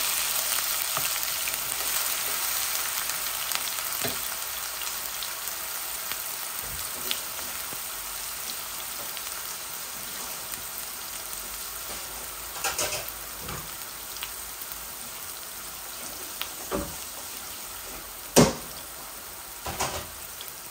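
Ground onion sizzling in hot oil in a nonstick wok, stirred with a wooden spatula at first. The sizzle slowly grows quieter, with a few short sharp clicks in the second half, the loudest about two seconds before the end.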